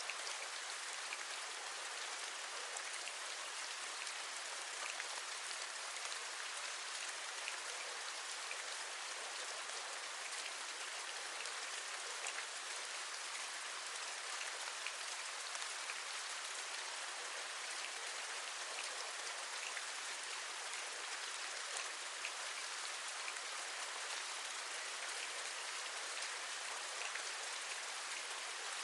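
Steady rain falling, an even hiss with many small raindrop taps scattered through it.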